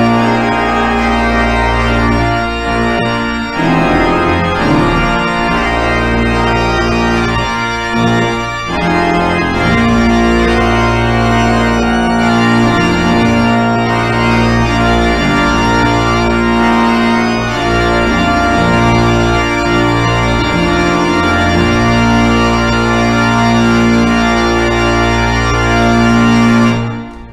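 Church organ playing the closing piece of the service: loud, full sustained chords over a deep pedal bass. Near the end it releases a held final chord, leaving the room's reverberation to die away.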